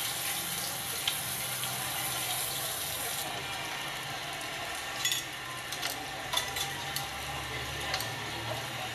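Steady hiss of a small bowl of vegetable soup heating on a gas burner, which stops about three seconds in. Then a few light clinks of metal tongs against a metal tray as toasted baguette slices are picked up.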